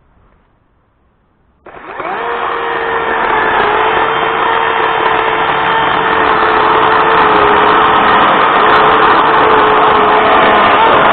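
DeWalt DCMPS520 battery-powered chainsaw switched on about two seconds in, its electric motor and chain then running steadily at speed with a held whine.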